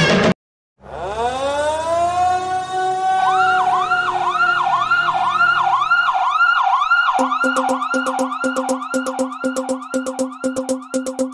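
Siren-like wail in the backing music: after a brief gap a tone rises and holds, then warbles up and down about twice a second. A pulsing beat joins about seven seconds in.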